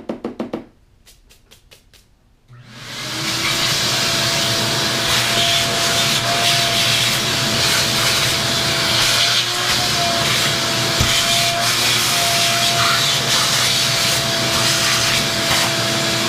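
A vacuum cleaner switched on about three seconds in, spinning up and then running steadily: a loud rushing hiss with a steady motor whine, as its hose sucks dust out from around a motorcycle's wiring connectors.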